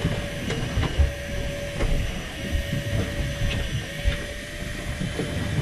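Wind buffeting the microphone over a low rumble, with a steady hum that breaks off about once a second and a few light clicks, as a spinning fishing reel is wound in on a boat.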